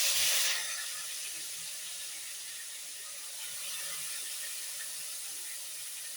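Marinated chicken pieces going into hot oil in a pot: a sudden loud sizzle that eases after about half a second into a steady frying sizzle.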